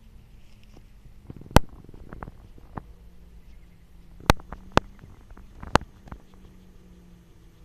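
Hedgehog moving and rooting through grass: low rustling with a few sharp clicks. The loudest click comes about a second and a half in, and a cluster of three follows between four and six seconds.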